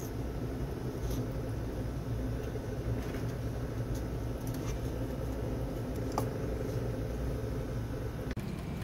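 A steady low mechanical hum, with a few faint metal clicks as stainless mesh watch-part cleaning baskets are handled, stacked and set into their holder.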